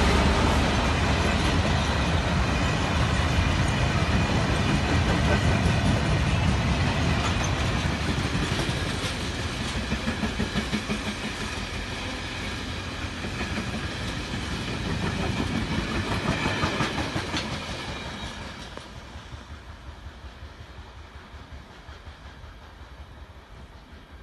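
Class 66 diesel freight locomotive passing close by with a heavy low engine rumble, followed by a long train of freight wagons rolling past with a rhythmic clickety-clack of wheels over the rail joints. The sound fades away as the train draws off, about three-quarters of the way through.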